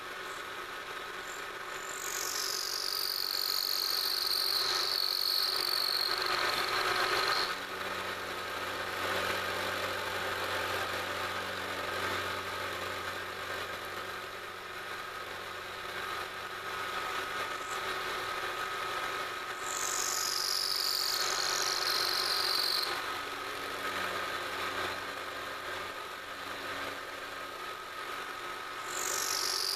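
Milling machine spindle running with an end mill roughing out a pocket in a metal plate: a steady whine throughout. Stretches of cutting noise come as the table is fed. Each brings a high tone that drops in pitch and then holds, from about two to seven seconds in, again around twenty seconds, and starting again near the end.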